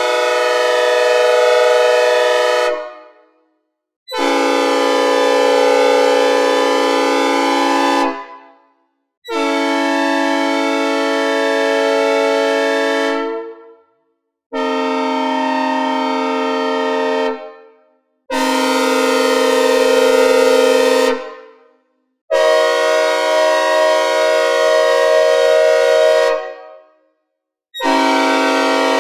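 A series of synthesized locomotive air horn chords imitating Nathan multi-chime horns (K5LA, P5, P3, K5CA-LS, K5H and P5A), made with a synthesizer and reverb. There are six full blasts and the start of a seventh, each a steady chord of several notes held about three to four seconds, with a different chord each time and a short silence between them. Several blasts trail off in a fading reverb tail.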